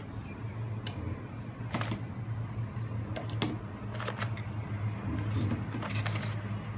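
Eggs being taken from a paper egg tray and set into a plastic egg container: a series of irregular sharp plastic taps and clicks over a steady low hum.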